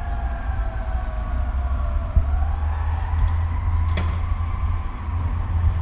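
Fire engine siren wailing, its pitch sliding down and then rising again about two seconds in, over the steady low rumble of the moving truck. A single sharp click sounds near the two-thirds mark.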